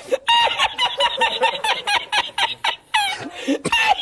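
A man's high-pitched, cackling laugh: a quick run of short, squeaky wheezing bursts, about five or six a second, pausing briefly near three seconds before a last burst.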